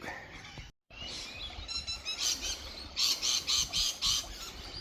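Wild birds calling outdoors. A softer run of short high notes is followed by a loud series of about five rapid chirps, roughly four a second.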